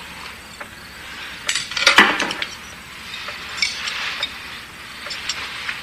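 Knives and forks clinking and scraping on china dinner plates: scattered small clicks with short scrapes, the loudest cluster about two seconds in.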